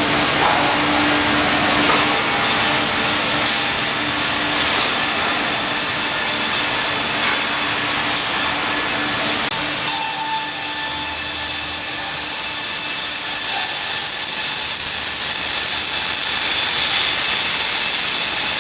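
Tandem log bandsaw cutting through a log as the hydraulic carriage feeds it, a loud steady sawing noise with a high whine. The whine grows stronger about ten seconds in.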